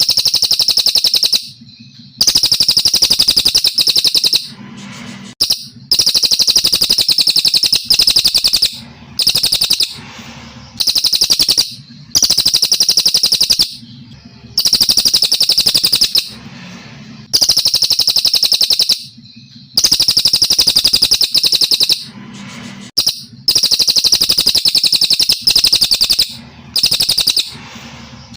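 Brown cililin songbird singing: about a dozen loud phrases of rapid, high, trilling notes, each lasting one to three seconds, with short pauses between them.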